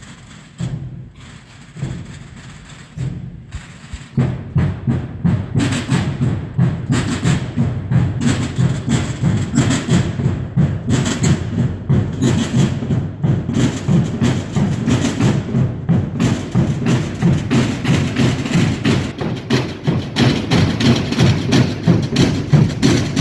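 Holy Week brotherhood drums: a few single, spaced beats, then about four seconds in many drums strike up together in a fast, continuous rolling beat.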